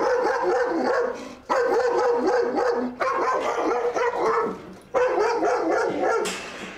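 Large white dog barking frantically in four long runs of rapid barks, each about a second and a half long: an agitated dog that goes crazy at strangers.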